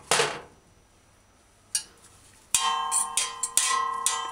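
A metal fork scraping and knocking on the bottom of an empty stainless-steel pressure cooker pot while stirring dry curry powder. From about two and a half seconds in, a quick, uneven series of strikes sets the pot ringing like a bell.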